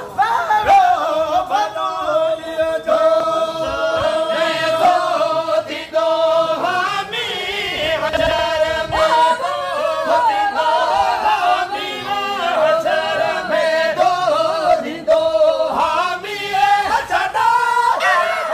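Voices singing a Sindhi molood sharif, a devotional hymn, unaccompanied, in long held, ornamented notes.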